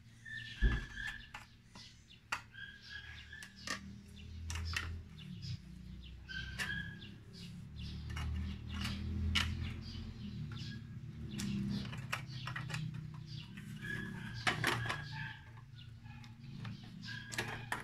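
Aviation tin snips cutting thin tin-can sheet metal, the blades closing with sharp metallic clicks at irregular intervals over a low rumble.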